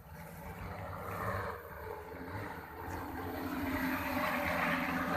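Multirotor agricultural spraying drone's propellers running steadily in flight, growing louder as it comes close about three seconds in.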